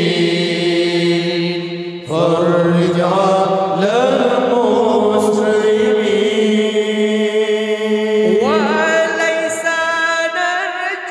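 Male a cappella group singing an Islamic sholawat in Arabic, with drawn-out wordless melismatic lines over a steady held low note. New vocal phrases swoop upward about two seconds in and again about eight seconds in.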